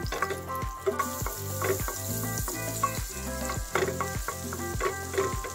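Butter sizzling and foaming in a hot frying pan as it is stirred with a wooden spatula, over background music with a steady beat.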